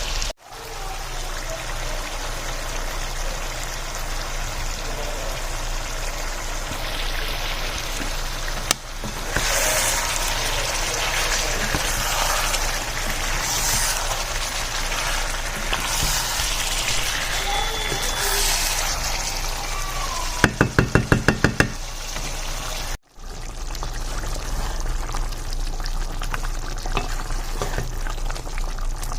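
Spiced chicken with onions and tomatoes sizzling and bubbling in a pan, cooking in its own released juices. About two-thirds of the way through, a quick run of about nine short pulses sounds over it.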